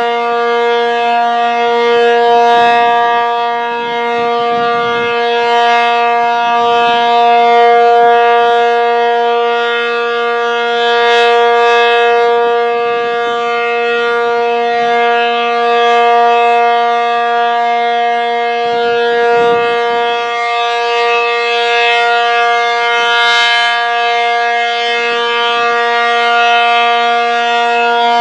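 ACA Cyclone 125 rotating outdoor warning siren sounding a steady tone at unchanging pitch, its loudness swelling and fading about every four seconds as the horn sweeps around.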